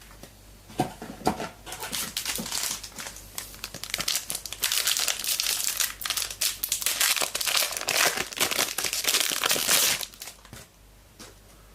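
Foil trading-card pack wrapper being torn open and crinkled by hand: a few sharp crackles about a second in, then dense crinkling and rustling for several seconds that stops abruptly near the end.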